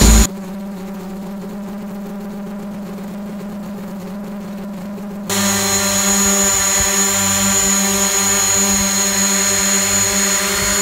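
DJI Mavic Pro quadcopter hovering close by, its propellers and motors making a steady hum with several fixed pitches. The hum is muffled at first; about five seconds in it becomes much louder and brighter, with a high whine on top.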